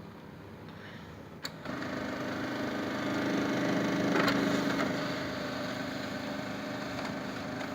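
Printer mechanism starting up with a click, then its motor running with a steady hum of several held tones that swells in the middle; this is the strange sound the owner is asking about.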